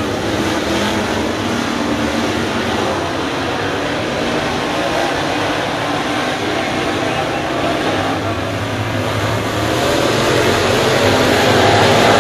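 A field of dirt late model race cars running laps on a dirt oval, their V8 engines at racing speed. The engine noise swells about ten seconds in as a pack comes through the nearby turn.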